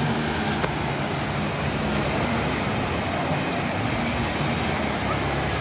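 Wave pool running: a steady rush of churning, breaking water, with a faint low hum underneath.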